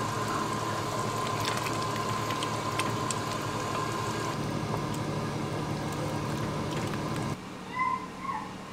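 Ragù bubbling in a stainless steel pot on a gas burner while it is stirred with a wooden spoon, with a few light clicks of the spoon against the pot over a steady hum. About seven seconds in the sound cuts to a quieter room, followed by a couple of brief high chirps near the end.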